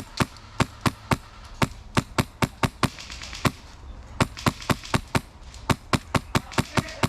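Airsoft gun firing rapid single shots, sharp cracks at about three to four a second in two runs with a short pause about halfway.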